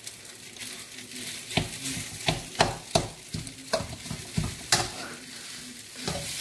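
Metal spatula scraping and knocking against a steel wok as fried rice is stir-fried, over a steady sizzle of frying. The strikes are irregular and come mostly from about a second and a half in.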